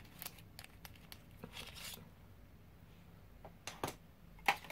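Faint rustling and scattered light clicks of small makeup packaging being handled in a cardboard box, with two sharper clicks near the end.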